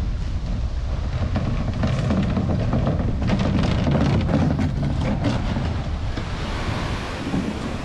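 Wind buffeting the microphone in a steady low rumble that swells toward the middle, with a run of short knocks and splashes about halfway through.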